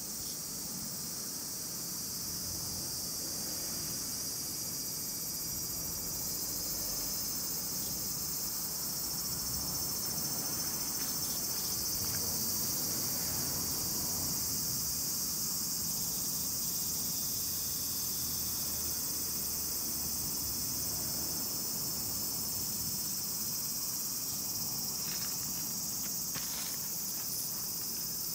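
Steady, high-pitched chorus of summer insects, an unbroken shrill drone.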